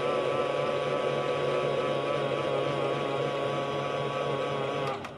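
Miele Softtronic toy washing machine running its program, a steady motor hum with a slight waver in pitch, which stops abruptly near the end.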